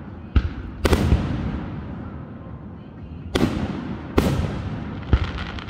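Aerial firework shells bursting: five sharp bangs, each trailing off in a long echoing rumble, the last one about five seconds in the loudest. Rapid crackling starts right after it.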